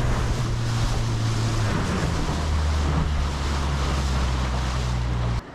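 Small fishing boat under way: its outboard motor runs steadily under a wide rush of wind and water, the engine note dropping lower about two seconds in. The sound cuts off suddenly near the end.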